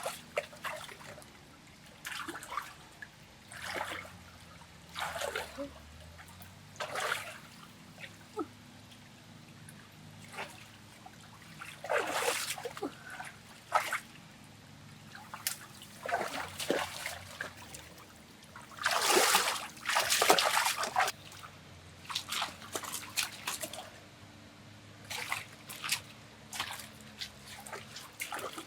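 Water splashing and sloshing in short, irregular bursts, the loudest and longest about two-thirds of the way through.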